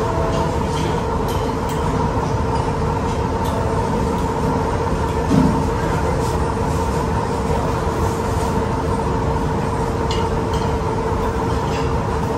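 Steady mechanical hum in the room, holding two even tones over a low rumble, with a few faint clinks of forks and knives on the steak plates.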